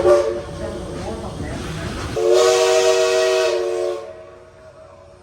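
Southern Railway 4501's Princeton three-chime steam whistle blowing one steady chord of about two seconds, which then fades away. Just before it, rumble and hiss from the locomotive fill the background, right after a short toot ends at the very start.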